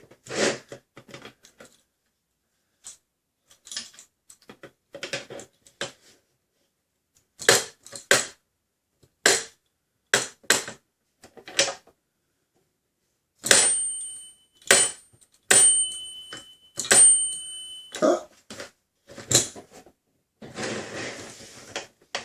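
Plastic target pieces being handled and snapped together: a string of separate clicks and knocks. Around the middle, the target's ding plate rings out three times with a clear, steady tone.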